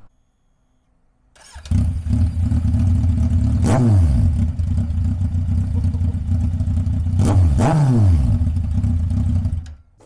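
Kawasaki Z1000 inline-four motorcycle engine starting up about a second and a half in and running with its end silencers removed, loud and raw, blipped twice around four and seven and a half seconds in, pitch rising then falling each time. It cuts off just before the end.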